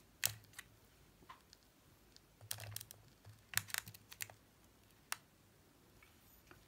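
Scattered light clicks and taps of small objects being handled up close, in small bunches about two and a half and three and a half seconds in.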